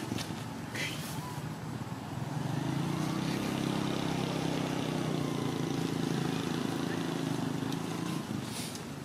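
Low, steady hum of a vehicle engine running nearby; it is fainter in the first two seconds, steady and stronger through the middle, and eases near the end. A few short clicks or rustles sound over it.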